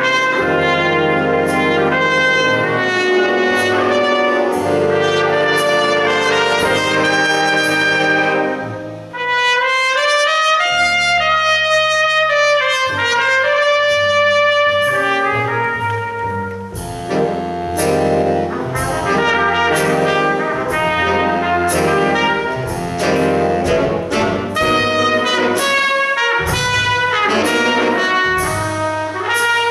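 Jazz big band playing a slow ballad, with a solo trumpet carrying the lead line over the band. The accompaniment thins out about nine seconds in, and the full band comes back in around seventeen seconds.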